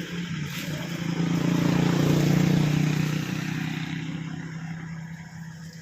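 A motor engine's steady hum swells to a peak about two seconds in, then fades away, like a vehicle passing by.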